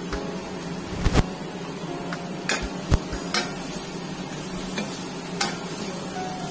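Chopped cabbage and onion frying in ghee in a stainless steel kadhai with a steady sizzle, while a steel spoon stirs and scrapes through it, knocking sharply against the pan several times.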